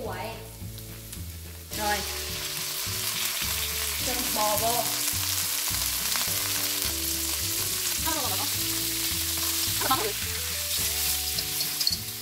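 Garlic sizzling gently in hot oil in a wok, then sliced raw beef going in about two seconds in, after which a loud, steady sizzle of the meat frying carries on.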